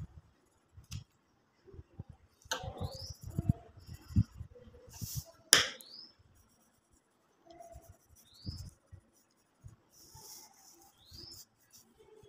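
Short high rising chirps repeated about every three seconds, typical of a bird calling, with scattered low knocks and a sharp click about halfway through.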